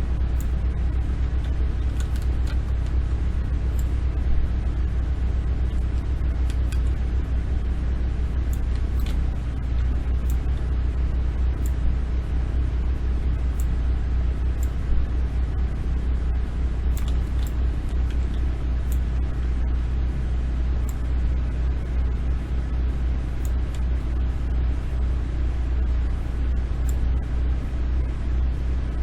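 Steady low rumble with scattered faint, sharp clicks.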